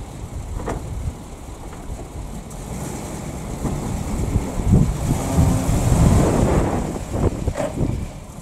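PAZ-672 bus and its V8 petrol engine driving past, the engine and road noise building to a peak about five to six seconds in and then fading away. Wind buffets the microphone.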